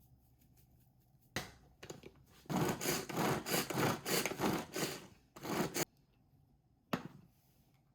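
Packaging being opened by hand: a sharp click, then a few seconds of rustling and scraping in several strokes, and another click near the end.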